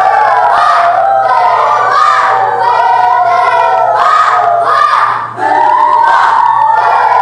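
Children's choir singing together in parts, marked by sharp accents about twice a second, with a short break about five seconds in.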